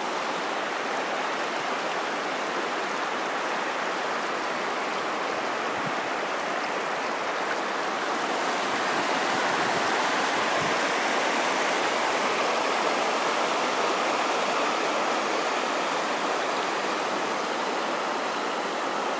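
River floodwater pouring over the crest of a levee as it overtops, a steady rushing like a waterfall that swells slightly in the middle.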